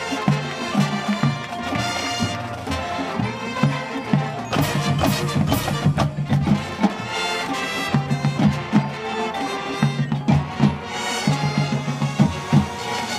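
High school marching band playing its field show: sustained low brass notes over rhythmic drumline percussion, with a run of crashes about halfway through.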